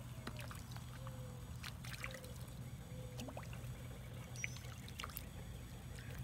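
Small trickling and lapping sounds of shallow pond water with scattered light splashes and clicks, stirred by a dog wading with her muzzle at the surface and a mallard hen pecking at floating bread beside her. A steady low hum sits underneath.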